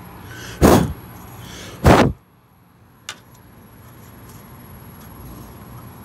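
Two loud, short clunks about a second apart from the metal drier-core screen and its end plate being handled, then a faint click about three seconds in.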